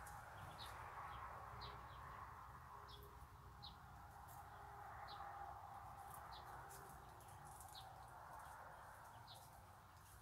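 Faint, high peeping of week-old Muscovy ducklings: short single peeps, about one or two a second, over a steady faint background hiss.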